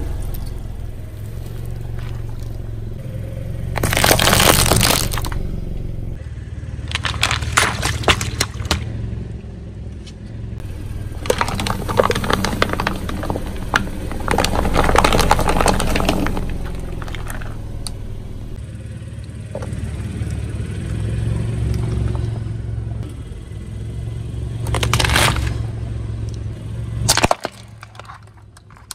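A car tyre rolling slowly over a series of objects, crushing them in several separate bursts of crackling and crunching, among them a row of paper cups, over the low steady hum of the car's engine.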